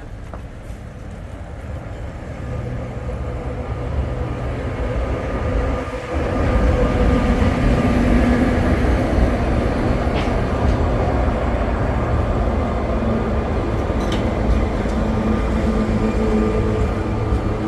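A Sóller tram running on its rails, its low rumble growing louder over the first six seconds and then holding steady, with a couple of faint sharp clicks later on.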